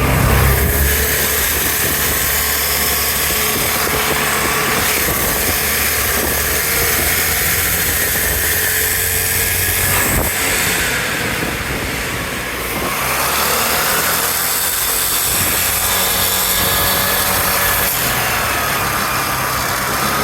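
2011 Vespa LX 150ie scooter's single-cylinder engine running and revved up and down several times, with a grinding noise on acceleration whose cause the owner has not found.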